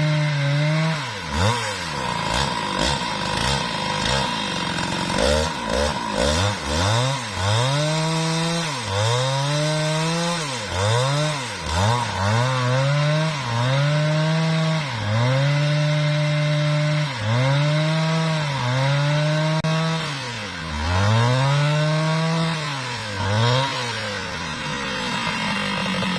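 Husqvarna 395XP two-stroke chainsaw cutting along a mahogany log under full throttle. Its engine speed drops and recovers again and again, about every second or two, as the chain bites into the wood.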